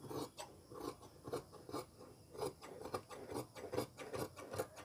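Large tailor's shears snipping through a layer of fabric, a run of short, soft snips about two a second, as a curved sleeve facing is cut out.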